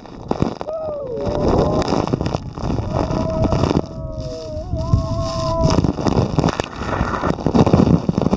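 Heavy waterfall spray and wind hitting the microphone in a rough rumble. Passengers' shrieks and whoops rise and fall about a second in, and again from about three to six seconds.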